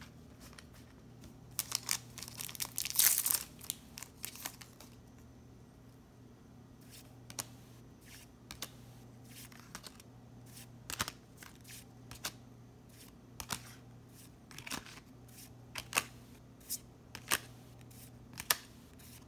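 A foil trading-card booster pack crinkling and tearing open, loudest about two to four seconds in. It is followed by a run of short sharp card flicks as the cards are slid one behind another, coming quicker near the end.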